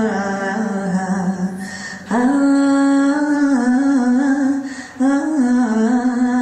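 Slow, unaccompanied-sounding vocal music: a single voice sings or hums long held notes that waver and bend in pitch. New phrases start abruptly about two and five seconds in.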